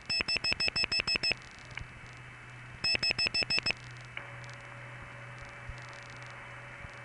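Telephone dial pulsing heard on a long-distance trunk as a Bell No. 4M toll switch outpulses the digits 8 and 6: a run of about eight clicks at roughly ten a second, a pause, then about six more. About four seconds in, the line switches onto an N1 carrier channel, and a steady hiss with a constant whine comes up: the howl of N1 carrier.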